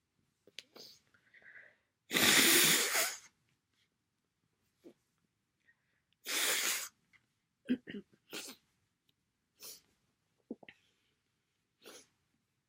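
A person with a cold sneezing wetly: two loud sneezes about four seconds apart, the first the louder and longer. They are followed by several short, quiet snuffles.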